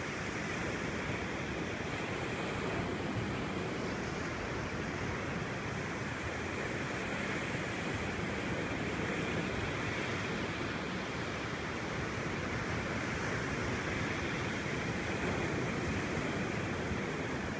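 Ocean surf breaking and washing up a sandy beach, a steady rush with no bird calls standing out.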